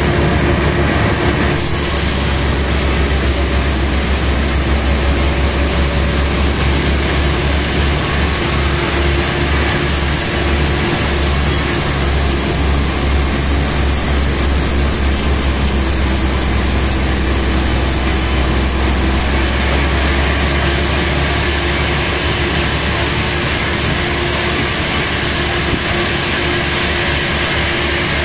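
Sawmill machinery running steadily and loudly, a continuous mechanical rumble and whine typical of a large log saw at work.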